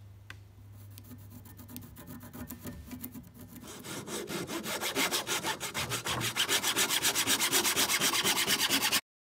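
Handsaw cutting through a wooden shovel handle held in a vise: quick, even back-and-forth strokes that start light and grow much louder about four seconds in, then stop abruptly near the end.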